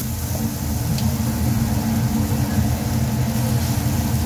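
A steady low rumble under a faint hiss of meat and mushrooms simmering in sauce in a frying pan on a gas stove.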